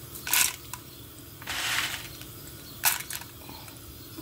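Unpopped popcorn kernels being stirred with a spoon in hot oil in a cast-iron cauldron: a few short scraping, rattling strokes, roughly a second apart.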